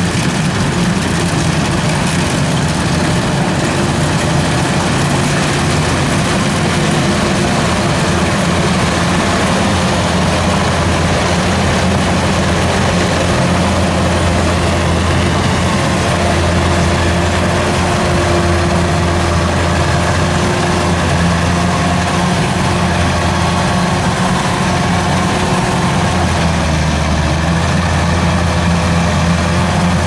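Kubota DC93 rice combine harvester's diesel engine and machinery running steadily under load as it cuts and threshes rice.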